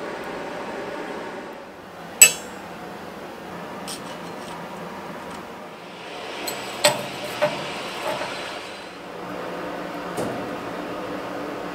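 Steady rushing noise of a coal forge fire under its air blast. Steel blacksmith tools clink against metal: one sharp ringing clink about two seconds in, a few lighter ones near the middle, and one more near the end.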